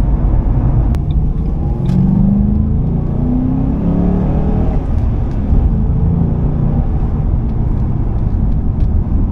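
A 2005 Ford Mustang GT's 4.6-litre V8 running under way, heard from inside the cabin as a steady low rumble. Between about two and four seconds in, the engine note rises in pitch a few times as the car accelerates.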